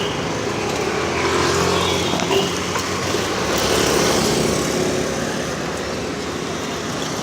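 Steady road traffic noise: a continuous rush of passing vehicles, with an engine hum coming up about a second in.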